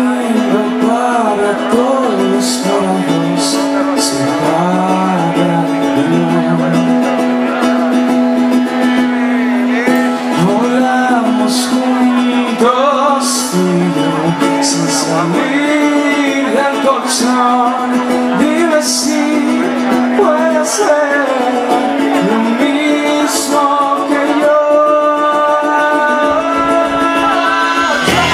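Live band music: a man sings into a microphone over a strummed ukulele and electric guitar, with a sustained low note held under the tune and short hissy accents here and there.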